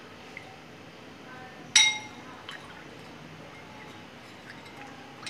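Metal spoon clinking against a glass bowl while stirring milk: one sharp, ringing clink a little under two seconds in, then a few light clinks.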